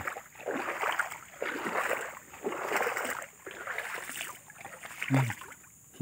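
Footsteps wading through shallow floodwater, a slosh and splash at each stride, about one step a second.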